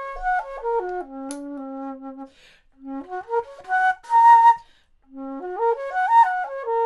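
Flute playing a lively melody of quick stepped notes in three short phrases, with brief breaks between them.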